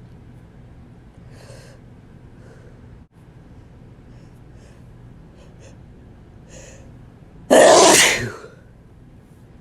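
A man's single loud, wet sneeze about seven and a half seconds in, after several faint, short breaths as the sneeze builds.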